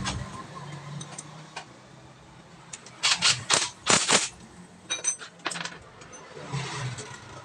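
Hand tools and metal engine parts clinking and knocking together while a motorcycle engine is being worked on: a burst of several sharp clanks about three seconds in, then a few lighter clicks a couple of seconds later.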